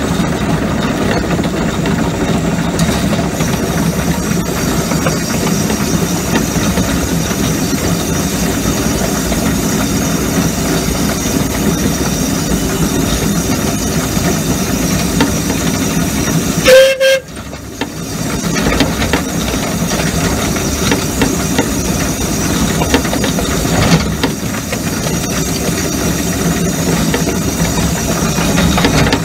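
Miniature steam locomotive on 7¼-inch gauge track running steadily, heard from its cab, with one short whistle blast a little past halfway through, the loudest sound.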